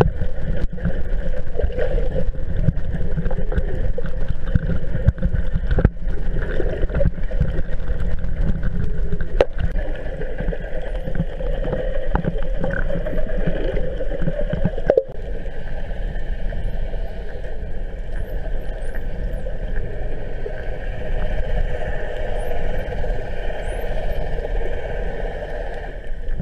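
Steady muffled underwater noise picked up through a camera housing, with the drone of boat engines carrying through the water. A few faint, high, sliding whistles come in the second half, typical of spinner dolphins calling.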